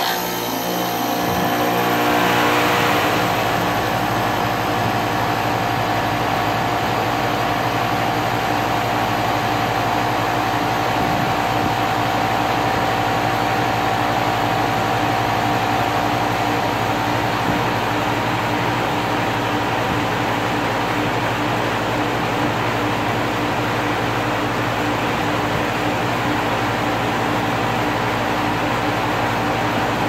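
2001 Carrier 5-ton air conditioner running: a loud, steady mechanical hum with a low drone and a steady whine. It swells a little over the first three seconds, then holds steady.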